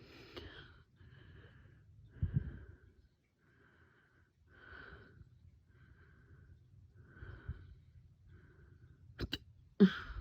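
A person's hiccups: short wheezy catches of breath about once a second, with sharper, louder hiccups about two seconds in and again near the end, the last the loudest. The uploader finds them normal; her boyfriend calls them weird.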